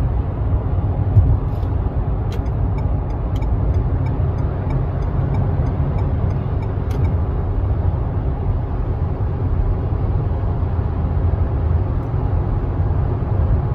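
Steady road and engine noise inside the cabin of a Renault Samsung QM6 LPG SUV cruising on the highway: a low, even rumble.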